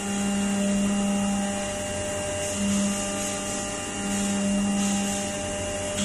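CNC milling machine's end mill cutting 6061-T6 aluminium under flood coolant: a steady machine whine of several fixed tones over an even hiss, with a strong low hum that comes and goes several times as the cut goes on.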